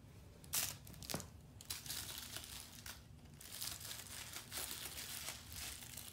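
Cats' claws scratching and rustling the fabric of a plush banana-shaped cat bed as the kittens scramble and paw at it. Two short sharp scrapes come about half a second and a second in, then the rustling runs on almost without a break.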